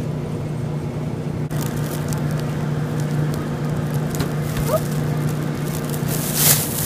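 Thin plastic produce bag crinkling and rustling as it is handled. The crackle starts about a second and a half in and is loudest near the end, over a steady low hum.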